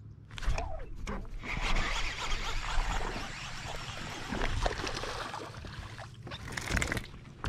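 Baitcasting reel cranked fast to retrieve the line, a dense whirring hiss with many small clicks. Near the end come a few knocks of handling as the rod is swung up.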